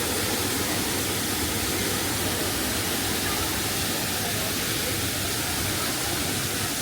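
Steady rushing of a waterfall, an even roar with no breaks.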